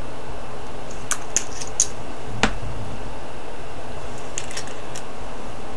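A few light clicks and taps of a small plastic glitter vial against a plastic tray, with one sharper tap about two and a half seconds in, over a steady background hiss.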